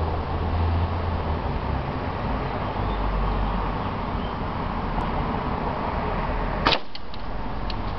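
A single shot from an MB05 airsoft sniper rifle, a sharp crack with a brief ring about two-thirds of the way in, followed by a few faint ticks. Steady background noise runs under it.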